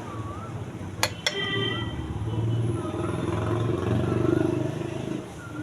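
Tractor diesel engine running, growing louder through the middle and easing off near the end, with two sharp clicks about a second in.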